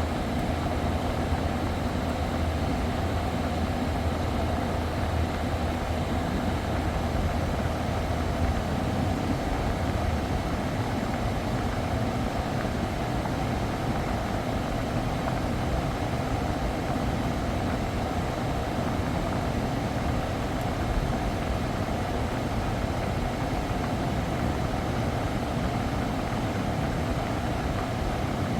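Kia Carnival's engine idling steadily with the air conditioning running while refrigerant is charged, a steady mechanical hum and whoosh. A low hum under it stops about ten seconds in.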